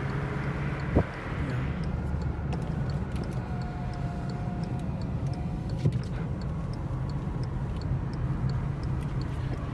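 A car being driven slowly, with a steady low engine hum and road noise, and a rapid, even ticking that carries on throughout. There is a single sharp knock about a second in.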